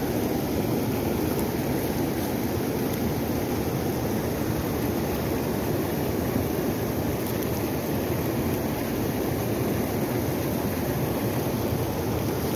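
A river in high flow rushing steadily over rocks: a constant, even rush of water, strongest in the low and middle range.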